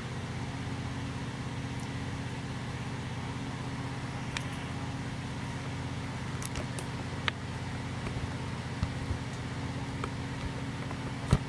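Steady low mechanical hum, like a fan or air-handling unit, with a few faint clicks and one sharper click near the end.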